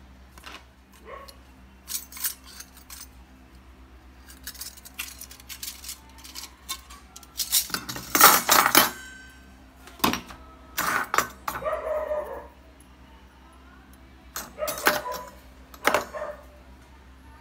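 A round metal tin and the nested stainless-steel ring cutters inside it handled by hand: irregular metallic clinks, taps and scrapes as the lid comes off and the rings knock together, some of them ringing briefly. The busiest clatter falls about eight to nine seconds in.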